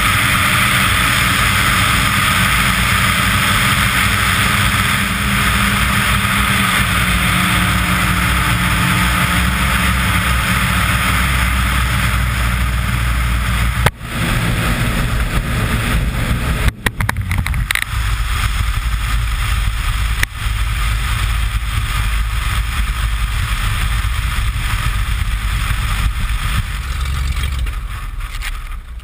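Beechcraft BE33 Debonair heard from a camera under the wing: a loud airflow rush over the engine's drone on the landing approach. The wheels touch down about halfway through, with a few brief jolts in the sound. Then the rush dies away, leaving the engine's low rumble at low power as the plane rolls out and slows.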